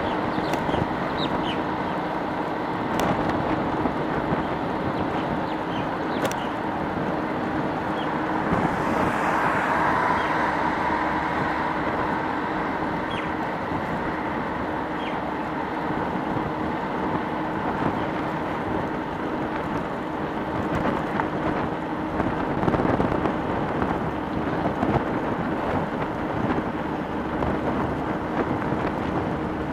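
Road and traffic noise heard from an electric bike riding through city streets: a steady rush of wind and road sound with a low steady hum under it. Short high chirps come and go, and the noise swells briefly about ten seconds in.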